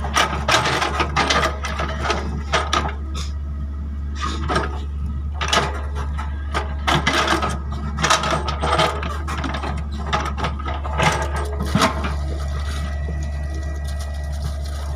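Excavator engine running steadily under load, with repeated bursts of metallic clanking and rattling from the working machine.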